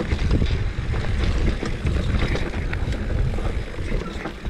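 Mountain bike riding down rocky dirt singletrack: wind buffeting the camera microphone as a steady low rumble, with scattered clicks and knocks from the tyres and bike over stones and roots.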